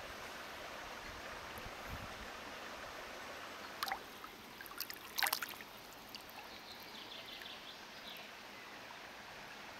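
Splashing water as a largemouth bass is let back into the lake: a short splash about four seconds in, then a few more a second later, over a steady hiss of lapping water.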